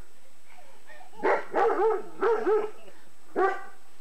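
Dog barking in short, pitched barks: a quick run of yappy, wavering barks in the middle, then one more bark near the end.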